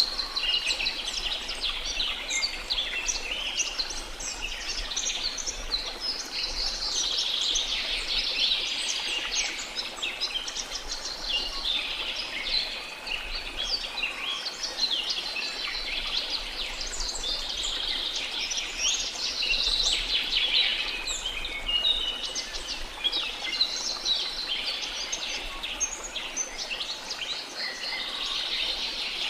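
A dense chorus of many birds singing and chirping at once, with rapid overlapping high chirps and trills, over a faint steady background hiss.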